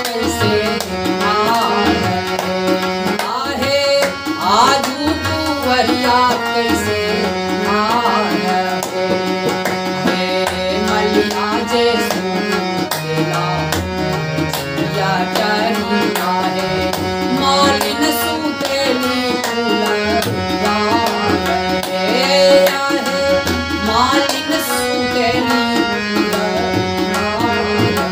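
Tabla playing a steady rhythm under a harmonium's held notes and melody, the instrumental accompaniment of a north Indian folk devotional song.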